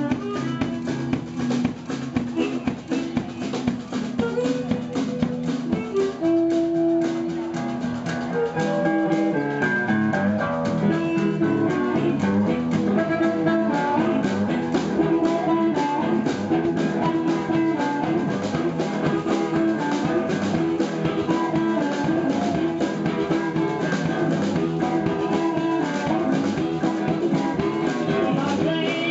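A live blues band playing: guitar over a drum kit keeping a steady beat.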